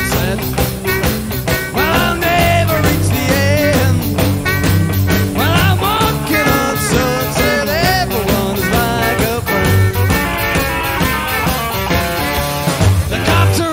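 Blues band playing an instrumental passage, a lead line of bending, sliding notes over the full band, heard from an old audio cassette recording.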